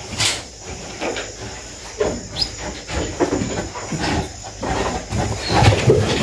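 Piglets grunting in short, irregular bursts, with a couple of brief high squeals.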